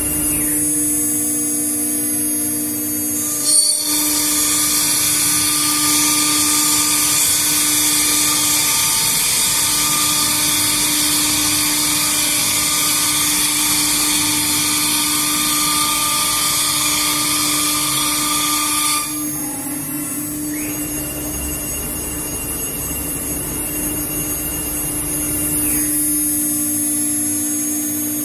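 CNC router spindle running with a steady whine while its cutter carves wood. A louder, harsher cutting noise starts a few seconds in and drops away about two-thirds through. The quieter stretch that follows carries a steady high tone.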